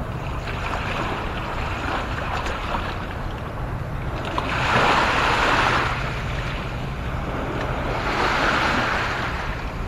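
Lake waves washing onto the shore, swelling twice, about five and eight seconds in, over a steady low rumble of wind on the microphone.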